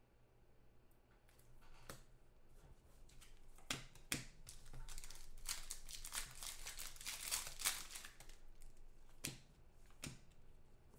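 Foil wrapper of a 2014 Certified Football trading-card pack being torn open and crinkled by hand. The crackling is thickest in the middle, with a few sharp clicks before and after it.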